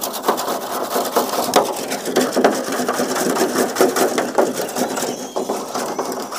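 Flat hand scrapers working thickening date palm jaggery in a large metal tray, a quick, uneven run of scrapes and knocks against the metal. It is the sound of the boiled-down palm sap being beaten as it cools so that it sets into jaggery.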